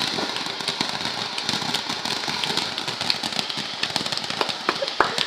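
A small firework burning with a steady hiss and dense crackle, with a couple of sharper pops near the end.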